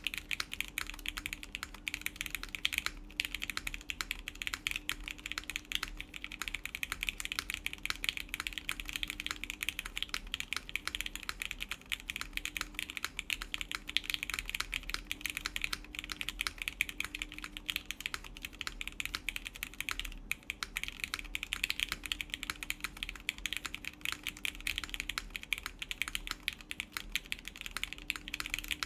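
Continuous fast typing on an Etar87 mechanical keyboard, bottom-mounted, with lubed Gateron Yellow linear switches (milky tops, 65 g springs) in a full aluminum plate. There are brief pauses about 3 seconds in and again about 20 seconds in.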